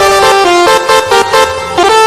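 Bus 'telolet' multi-tone air horn playing a quick melody, its notes stepping from one pitch to the next several times a second, with a brief dip in level in the second half.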